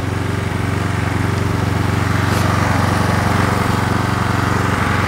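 Pressure washer running steadily, its small engine humming under the hiss of the high-pressure water jet spraying a dirty automatic transmission case. The spray hiss grows louder about halfway through.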